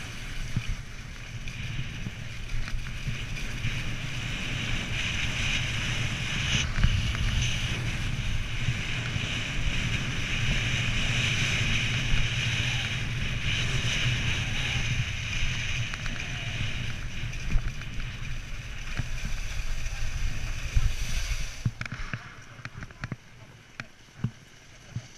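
Skis sliding on packed snow make a steady hiss, with wind rumbling on the camera's microphone. About 21 seconds in the sound drops away as the skier slows to a stop.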